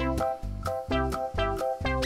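Upbeat instrumental background music: short plucked notes over a bouncing bass line in a steady beat.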